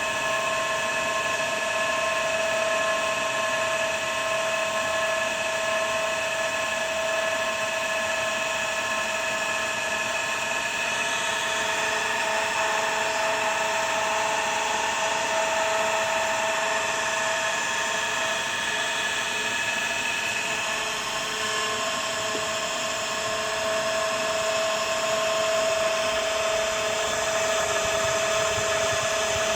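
Well-water pressure booster pump's motor running with a steady, high-pitched whine over a rushing hiss, extremely loud. The owner takes the whine for an abnormal noise.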